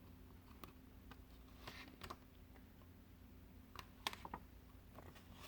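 Near silence with a few faint clicks and light rustles from the pages of a picture book being handled and turned.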